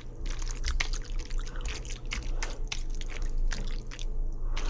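Food bubbling in a pot on the stove, with irregular pops and drips, over a steady low hum.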